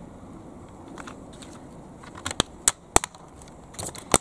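Sharp plastic clicks and knocks as the parts of a plastic toy tractor are handled and pressed together. About four distinct clicks come in the second half, one close to the end.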